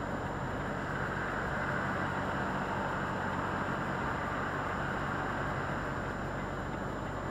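Volvo FH articulated lorry's diesel engine running with a steady low hum under continuous road noise, heard from inside the cab.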